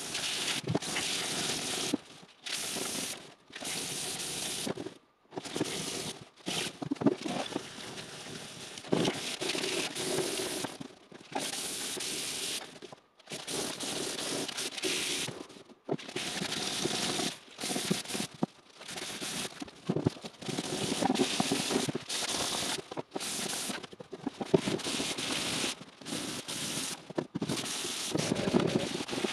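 Aerosol spray paint can spraying in repeated bursts of one to two seconds each: a hiss that starts and stops abruptly, with short gaps between passes.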